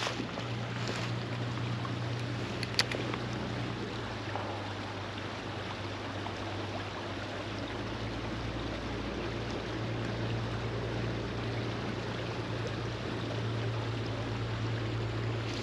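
Shallow mountain creek water running steadily over rocks, under a steady low hum. A single sharp click comes about three seconds in.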